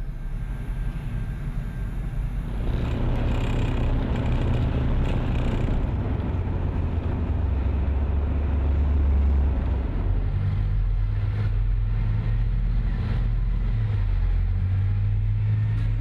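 Tracked armoured vehicle engine running: a steady low rumble that grows louder about two and a half seconds in, its pitch shifting up around ten seconds in.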